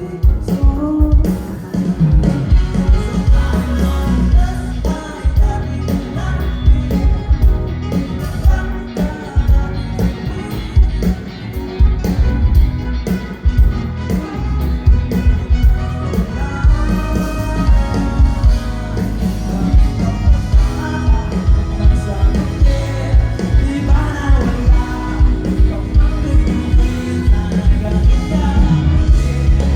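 A pop-rock band playing a song with a steady drum beat and bass, with singing.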